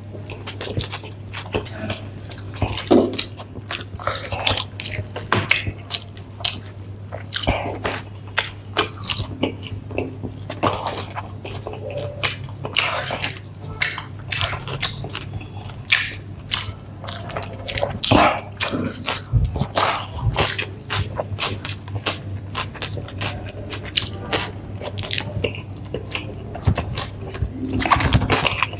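People biting and chewing a burger and french fries, with many irregular wet smacks and crunches, over a steady low hum.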